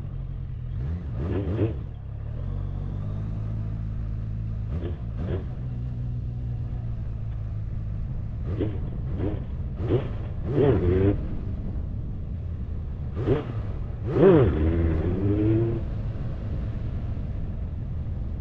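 Motorcycle engine idling, broken by a series of throttle blips and revs that rise and fall back, with a quick cluster around the middle and the biggest rev about 14 seconds in. These are revs for clutch ups, where the engine is revved and the clutch let out quickly to lift the front wheel.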